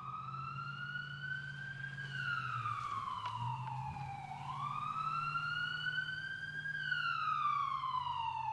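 A siren wailing slowly: its pitch rises for about two seconds, then falls for about two, twice over, above a low steady hum.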